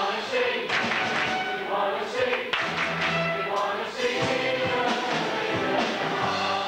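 A congregation and choir singing a worship song together over a live band, with drums keeping the beat and brass playing along.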